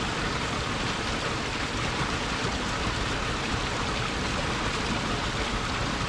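Creek water rushing steadily over a small cascade between boulders, an even, unbroken rush.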